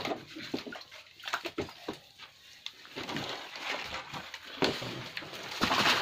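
Muddy water splashing and sloshing inside a concrete well ring as a man digs and scoops at its bottom: irregular short splashes, the loudest just before the end.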